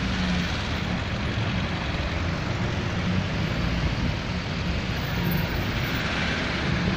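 Street traffic: car engines running and passing, a steady noise without break.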